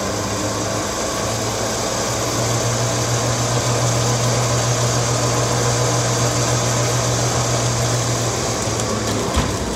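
A recovery truck's winch runs steadily, winding in its cable under heavy load as it drags a car with seized brakes. It stops with a click about nine seconds in.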